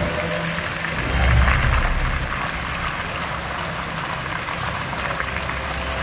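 Fountain jets splashing into the basin, a steady rain-like hiss. About a second in there is a louder, low whoosh as the show's flame jets fire.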